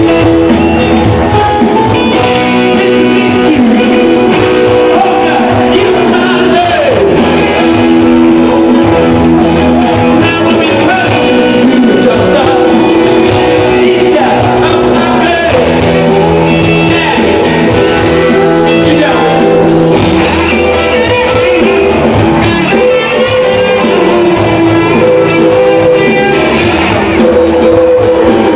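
Live rock band playing loud in an arena: electric guitars, bass and drums with a singer, heard from the audience seats.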